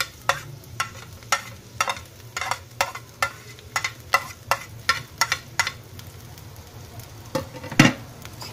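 Metal spoon clinking about twice a second against a ceramic plate and the wok as chopped green chillies and ginger are scraped into hot oil. Garlic and onion sizzle softly underneath. The clinks stop after about five seconds, and a louder knock comes near the end.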